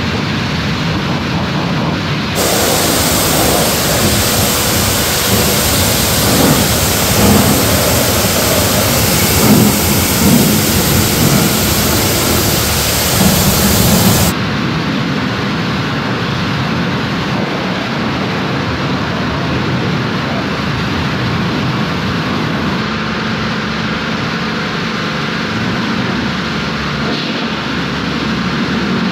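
Cold-water pressure washer jet rinsing a touchless cleaner off a vehicle: a steady hiss and spatter of water on the bodywork and tyres. It is louder and brighter from about two seconds in until about halfway through, then softer.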